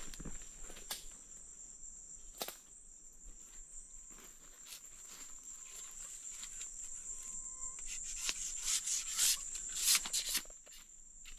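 Steady high-pitched insect chorus, with sharp knocks and scraping, rustling strokes as palm stems are cut and stripped by hand; the strokes come thickest and loudest from about eight to ten seconds in.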